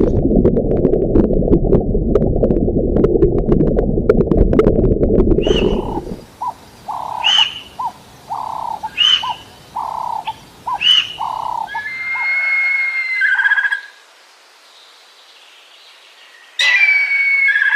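A loud low rumbling animal noise for about six seconds. It gives way to a run of repeated short bird calls about a second apart, a held whistled note, and after a short pause one more bird call near the end.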